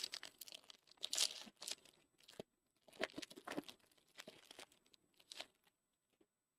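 A trading-card pack's wrapper being torn open and crinkled: a run of irregular crackling tears and rustles that stops about five and a half seconds in.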